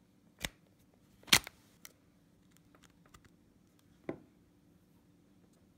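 Plastic clicks and light knocks as a USB cable is plugged into a plug-in power adapter and fitted to an Echo Dot smart speaker. There are a few scattered clicks, with one sharp click about a second and a half in, the loudest, and another about four seconds in.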